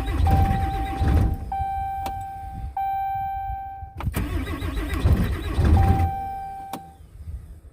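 Dodge diesel pickup engine cranked twice in extreme cold. It turns over strongly and tries to catch, then dies each time, with the glow plugs not working. A dashboard warning chime sounds in repeated tones of about one second in between.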